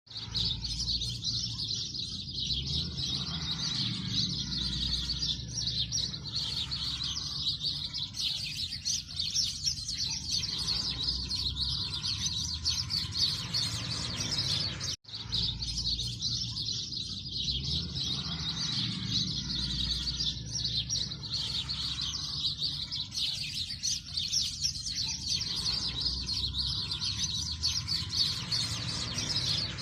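A dense chorus of many small birds chirping and twittering without a break, over a low rumble. The sound cuts out for an instant about halfway through.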